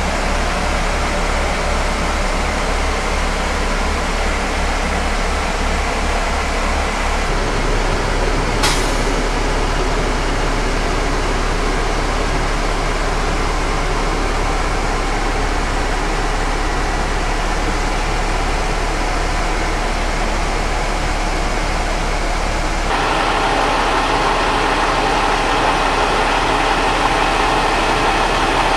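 A 2012 Pierce Velocity pumper's diesel engine idling steadily, a low pulsing rumble that grows fuller about 23 seconds in. A single sharp click about nine seconds in.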